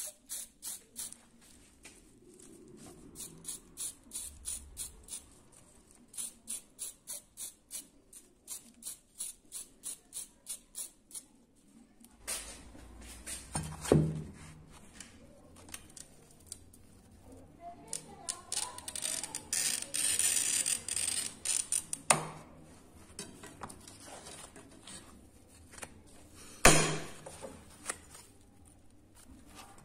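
A run of rapid light clicks, then a glass cutter scoring a pane of clear glass with a scratchy hiss, and sharp cracks as narrow strips are snapped off along the score.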